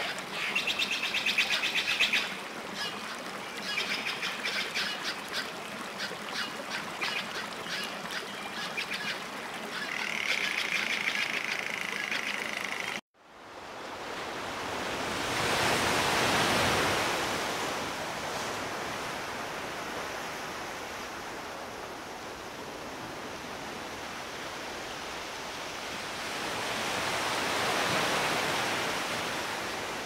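Small birds chirping and calling, with rapid clicking, for about thirteen seconds. The sound then cuts off abruptly and is replaced by waves washing on a beach, swelling twice.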